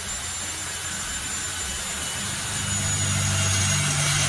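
Ryobi RPD18C 18V brushless compact hammer drill boring into metal with a metal bit. The motor runs at a steady high whine over the hiss of the bit cutting, growing a little louder past the halfway point as the bit bites.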